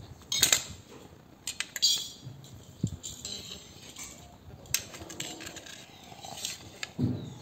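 Several sharp clinks of cutlery against a dish at irregular intervals.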